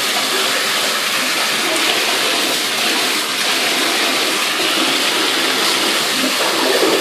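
Water running steadily from a bathtub faucet and splashing into the tub.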